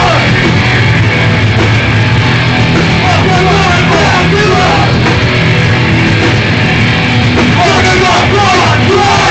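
Hardcore punk band playing live, loud and continuous: distorted electric guitars, bass and drums with a vocalist shouting over them.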